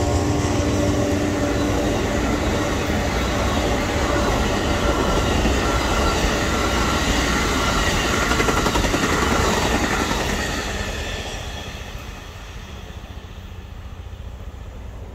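Amtrak passenger train cars rolling past at speed: a steady rumble and clatter of wheels on the rails, with some faint high whining tones midway. It fades from about ten seconds in as the last cars go by. The tail of the locomotive's horn dies away in the first second.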